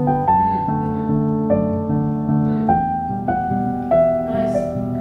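Gentle background piano music: a slow melody of single notes over held chords.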